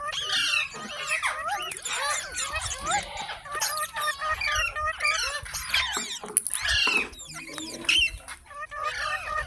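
A green parrot chattering and squawking in a rapid, continuous run of short calls that swoop up and down in pitch, with some talk-like mimicry.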